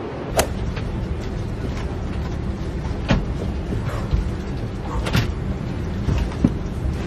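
Steady low rumble of an airliner cabin, coming in just after the start. Over it come a few sharp knocks and thumps as bags are handled and lifted up to the overhead bin.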